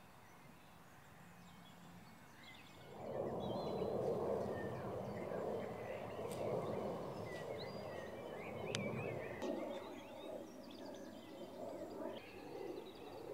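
Outdoor countryside ambience: birds chirping over a steady rushing noise that sets in about three seconds in.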